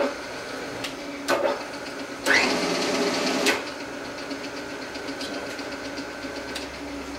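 Millport 2S vertical milling machine head: clicks and clunks from its controls as it is switched to low gear, then the spindle motor spinning up with a rising whine about two seconds in. The spindle then runs steadily in low gear over a constant hum.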